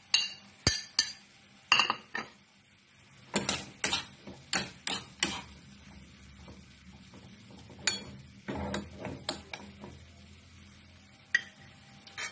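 A metal spoon knocking against a ceramic plate and the rim of a frying pan as chopped chillies are scraped in. It goes on to stir and scrape in the pan of cooking tomatoes in quick runs of sharp clinks and taps.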